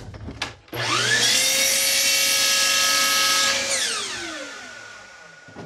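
Miter saw switched on with a click, spinning up to full speed within half a second and running steadily for about three seconds while trimming the end off a two-by-four. It is then released and winds down, its pitch falling over about two seconds.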